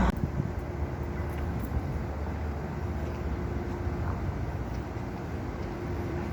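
Steady low rumble of street traffic, with a faint steady engine hum.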